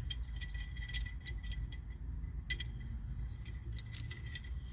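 Scattered light metallic clicks and clinks of a steel C-clamp being handled and set against a disc brake caliper, over a steady low background rumble.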